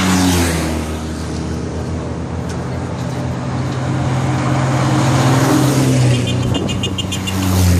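Vintage vehicles driving past one after another: a police motorcycle going by close at the start, then an old bus with a steady engine drone, then an old jeep. A quick run of high ringing tones sounds about six seconds in.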